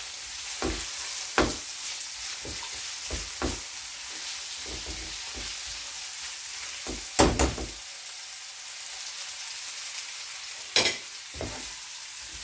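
Diced potatoes, carrots and onion sizzling in oil in a nonstick frying pan, stirred with a silicone spatula that scrapes and taps against the pan. The stirring stops about two thirds of the way through, leaving a steady sizzle, with a sharp clack near the end.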